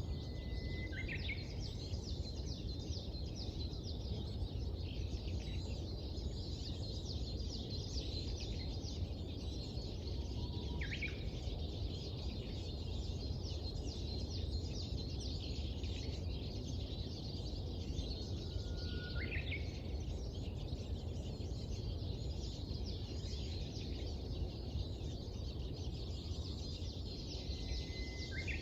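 Dawn birdsong: a steady chorus of many small birds chirping, with a louder call, a held note followed by a quick upward sweep, coming about every eight to nine seconds. A low, steady rumble of background noise runs underneath.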